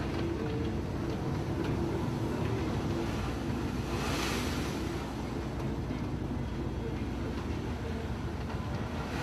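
Heavy diesel tipper truck engine running steadily as the loaded truck pulls off a barge ramp, with wind buffeting the microphone and a short hiss about four seconds in.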